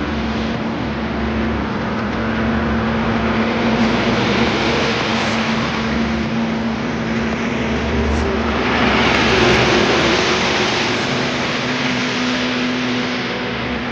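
Steady road and engine noise of a car driving in heavy rain: a constant hum under a dense rushing haze of tyre and rain noise, which swells louder from about eight and a half seconds in for a couple of seconds.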